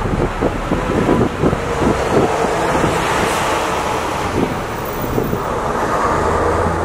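Wind buffeting the microphone, with low rumbling gusts over the wash of sea waves.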